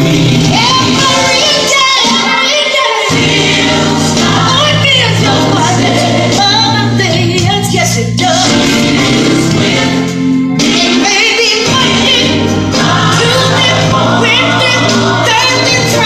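Loud gospel music with a choir singing over a steady bass line.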